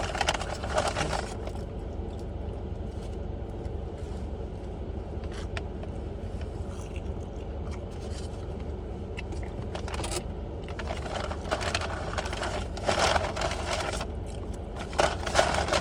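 Steady low hum of a car's running engine heard from inside the cabin, with bursts of rustling and scraping: near the start, again past the middle, and near the end.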